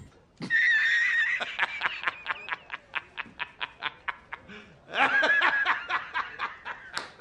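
A man laughing hard: a high, drawn-out cackle, then a fast run of 'ha' pulses of about four a second, with a second loud burst of laughter about five seconds in.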